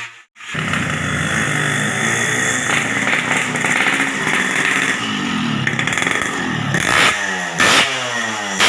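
Two-stroke motorcycle engine running and being revved, its pitch rising and falling, with a few sharp throttle blips near the end.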